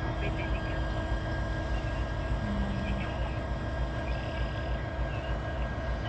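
Canadian Pacific EMD SD70ACu diesel-electric locomotive idling, a steady low rumble with a constant hum.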